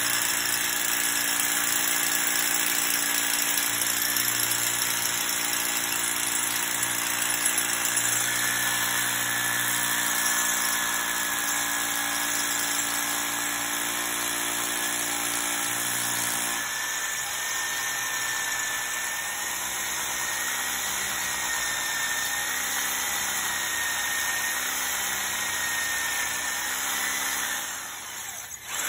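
Ryobi corded hammer drill running in hammer-and-rotation mode, boring an anchor hole into a concrete floor. It runs continuously with a steady high motor whine. Its tone shifts about two-thirds of the way through, and it dies away briefly just before the end.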